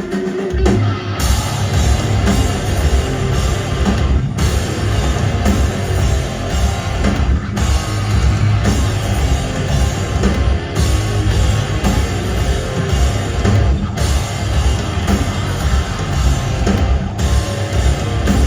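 Live rock band playing loud on drum kit and guitars; a held note gives way to the full band coming in about a second in.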